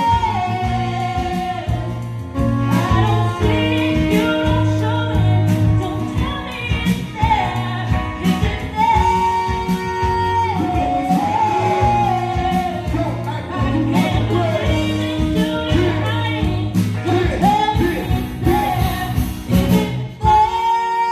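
Live band playing with held, wordless singing over steady bass and drums.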